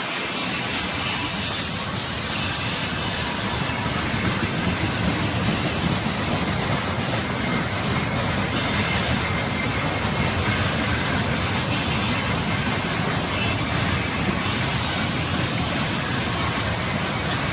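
Freight train of tank cars and open wagons rolling past, its wheels running over the rails with a steady, continuous noise.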